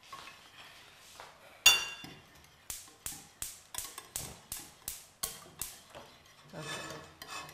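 Wire whisk beating an egg and mashed-banana batter in a bowl, the whisk tapping the bowl about three times a second. A single louder, ringing clink comes just before that.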